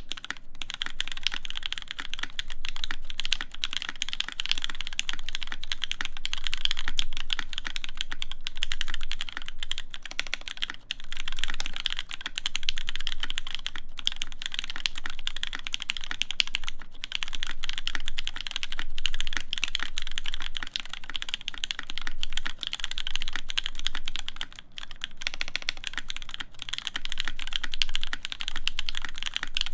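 Continuous fast typing on an EVE Moon TKL mechanical keyboard with stock Gateron Cap v2 Milky Brown tactile switches in an aluminium plate, under GMK Apollo keycaps: a dense stream of key clicks with short pauses every few seconds.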